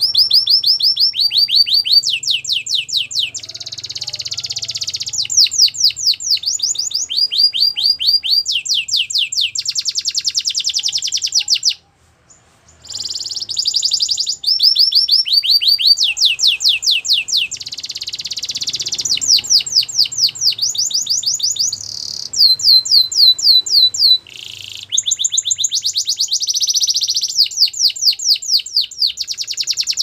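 Canary singing a continuous song of rapid trills, each a fast run of repeated notes, switching from one trill to the next every second or two, with one short break about twelve seconds in.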